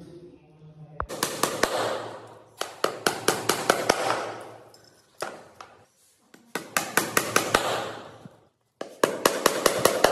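Hammer tapping on a plywood sheet in several runs of quick strikes, each run a second or two long with short pauses between.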